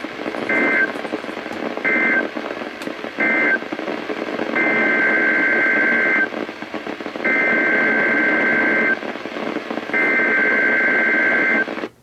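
NOAA Weather Radio SAME data bursts over a weather radio's speaker: three short two-tone warbling bursts, the end-of-message code, then three longer bursts of the same tones, an alert header, all about a second apart. A steady hiss of a weak, noisy broadcast signal runs underneath.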